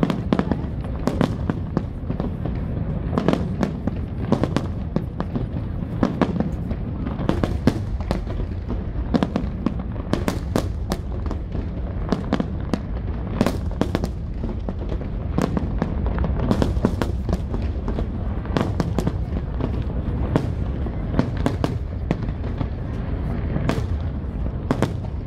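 Fireworks display: a running barrage of aerial shell bursts, frequent sharp bangs and crackles over a steady low rumble.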